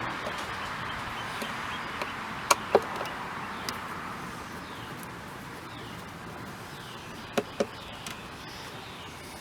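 Two pairs of sharp metallic clicks, a quarter-second apart, about two and a half and seven and a half seconds in, from hands working on the car door. Behind them a steady whooshing noise slowly fades, like a passing car, and faint short bird chirps come in the second half.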